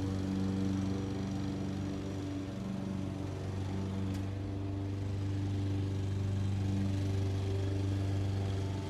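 A distant lawn mower engine running with a steady droning hum that wavers slightly in pitch and dips a little a couple of seconds in, mixed with the whir of a vintage Electrohome electric desk fan.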